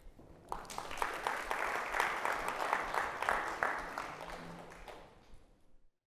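Audience applauding at the end of a talk. It starts about half a second in, builds, then fades and cuts off to silence just before the end.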